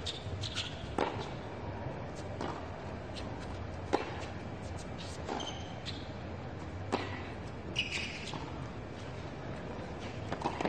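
Tennis rally on a hard court: the ball struck back and forth by rackets, with a sharp hit about every one and a half seconds.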